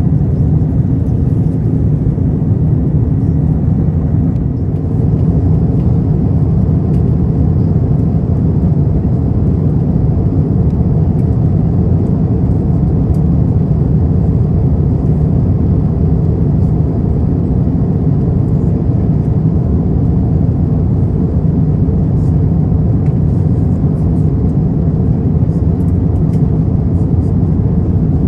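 Steady cabin noise inside an Airbus A350-900 in flight: a constant, deep rumble of airflow and its Rolls-Royce Trent XWB engines.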